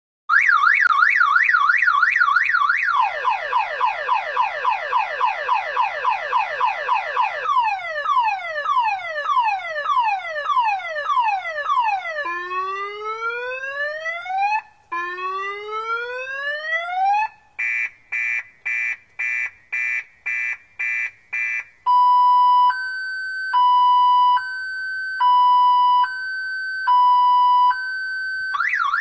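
Electronic car alarm siren cycling through its set of tones. It starts with a fast warble, then gives rapid falling chirps, slower falling sweeps, two long rising whoops and a run of quick beeps about two a second. A two-note high-low tone follows, and the warble starts again near the end.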